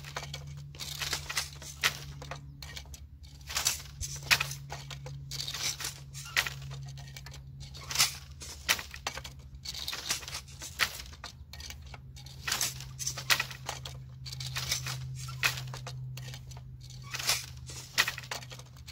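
Yarn rustling and scraping against the warp threads of a wooden loom as the weaver passes and draws weft through by hand: quick, irregular scratchy strokes, one or two a second, with a few sharper knocks among them. A steady low hum runs underneath.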